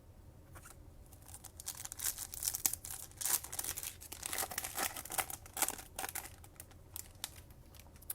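Foil wrapper of a trading-card pack being torn open and crinkled by hand, a run of irregular crackles that dies down near the end.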